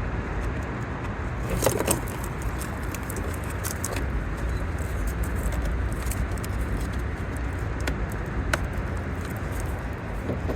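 Steady low outdoor background rumble with a few light clicks and small rattles, about two close together near two seconds in, another near four seconds and one near eight and a half: small parts and tools being handled.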